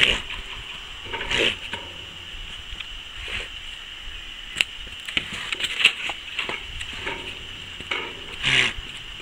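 Male llama giving a string of short calls, one every second or two, while excited by other stud males nearby.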